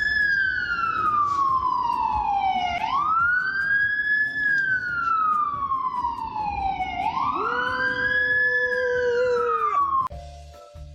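Wailing siren, rising quickly and falling slowly in a cycle of about four seconds, heard two and a half times. A second, lower held tone joins during the last cycle, and both cut off suddenly near the end.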